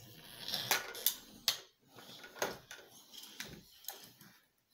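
Scattered light knocks and clatter of plastic toys and a wooden crib being handled and bumped by small children, several sharp knocks about a second apart.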